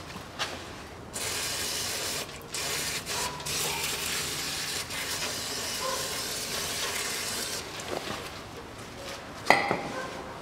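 Aerosol cleaner sprayed onto the oil filter housing, washing off oil drips: a steady hiss starting about a second in and running for some six seconds with a couple of short breaks. A sharp click near the end.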